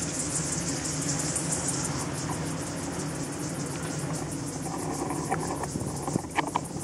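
Low, steady hum of a calm honeybee colony in an open top bar hive, worked without smoke, under a continuous high-pitched insect trill. A few light clicks near the end.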